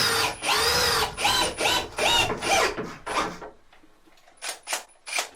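A cordless drill/driver run in about seven short trigger pulses, its motor whine rising and falling with each pulse, as if driving screws. Two short clicks near the end.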